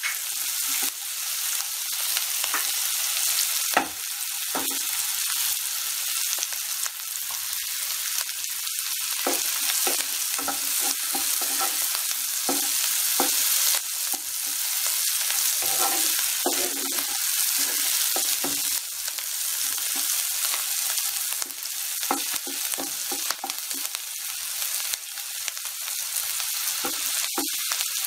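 Chopped onions, green chillies and curry leaves sizzling steadily in hot oil in a nonstick pan, with a wooden spatula scraping and stirring them every so often, the onions frying toward light brown.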